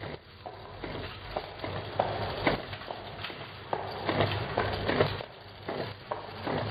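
Horizontal small-bottle labeling machine running, with irregular clicking and knocking from its conveyor and label mechanism over a faint low motor hum.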